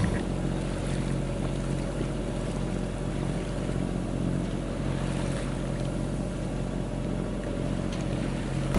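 Sailboat's inboard diesel engine running steadily at constant speed, an even hum with a wash of water and wind noise under it.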